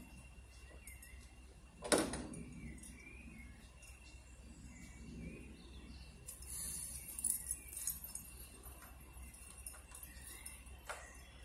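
Small birds chirping over a low steady hum from the idling Class 20 diesel locomotive, with one sharp knock about two seconds in and a fainter one near the end.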